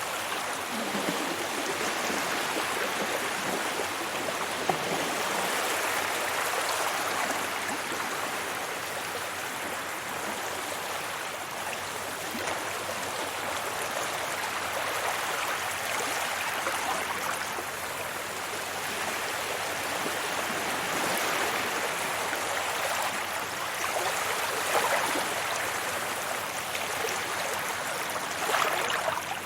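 Sea waves washing onto a beach: a steady rush of surf that swells and eases every few seconds, with sharper splashes near the end.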